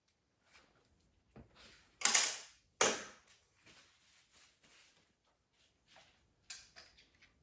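Metal transmission parts being handled and set down on a workbench: a loud clatter about two seconds in, a sharp knock just after, then light clinks and ticks.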